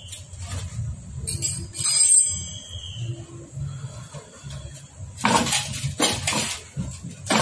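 Metal engine parts and tools clinking and knocking during assembly of a Hero Splendor Plus motorcycle engine. There is a ringing clink about two seconds in, then a run of louder knocks and rattles in the second half.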